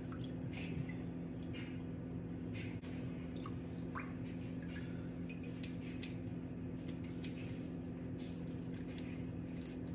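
Faint wet squishing and dripping as hands handle a rinsed raw redfish fillet over a steel sink, in short irregular ticks. A steady low hum runs underneath.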